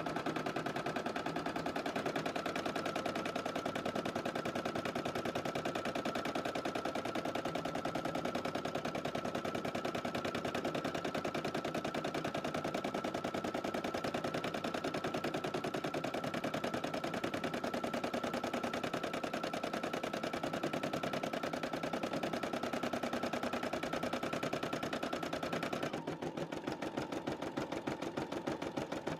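Computerised embroidery machine stitching out a design on a baby romper, the needle hammering in a fast, steady rhythm. A steady high whine underneath stops about 26 seconds in, and the sound gets a little quieter.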